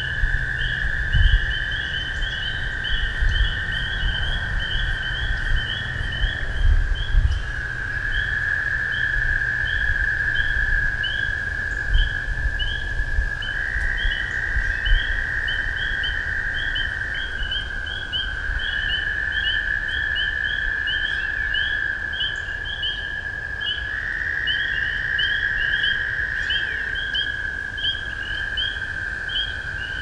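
Spring wetland chorus of American toads, long unbroken trills that overlap and shift a little in pitch every few seconds as different toads take over, with a steady stream of high, short peeps from spring peepers above them. Wind rumbles on the microphone, mostly in the first few seconds.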